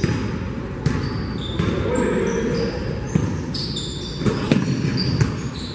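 A basketball bouncing on a hardwood gym floor, with sneakers squeaking in short high chirps and players' voices calling out, all echoing in a large gym.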